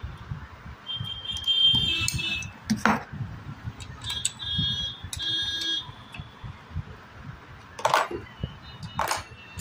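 Hand tools working on a cast-iron sewing machine: a screwdriver and spanner tightening the reverse-lever linkage screw, with sharp metal clinks about three, eight and nine seconds in. Three short high-pitched beeping tones of unclear source sound about one, four and five seconds in.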